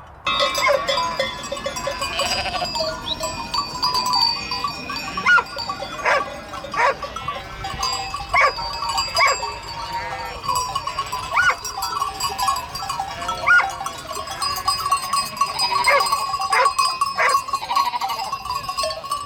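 A flock bleating, with many short calls overlapping one another.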